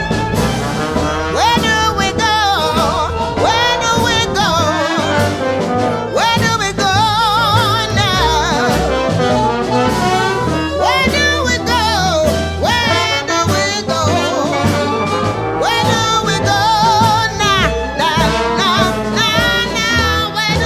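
Music: a song with a singing voice over brass instruments and a steady bass line.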